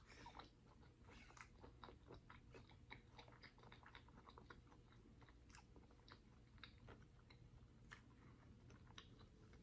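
Quiet, close-miked chewing of soft food (rice and shrimp masala): a steady run of small wet mouth clicks and smacks, several a second.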